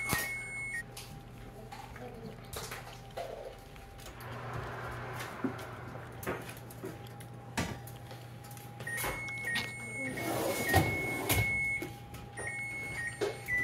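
Kitchen oven being opened and a foil cake pan lifted out off the metal rack, with knocks and clatters, the loudest around ten to twelve seconds in. An electronic beep sounds on and off at the start and again in the last few seconds.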